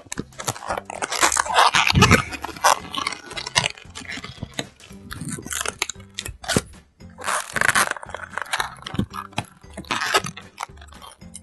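Latex modelling balloon being folded and twisted by hand, with irregular short squeaks and rubbing crackles, the busiest about a second in, again past the middle, and near the end.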